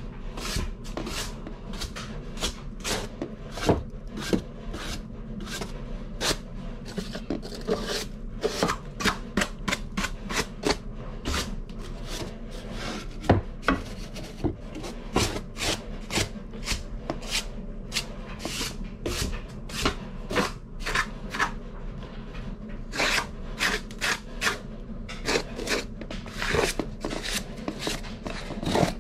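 Quick, irregular scraping strokes of a small hand tool on the wooden frame of a wall return-air opening, several strokes a second with a few louder scrapes.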